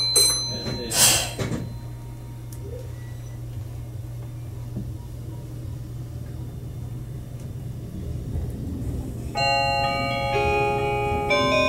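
Inside a Meitetsu limited express train car: a short ding and a loud rush of noise right at the start, then the steady low hum of the train running, and from about nine seconds in the electronic chime melody that leads into the automated next-stop announcement.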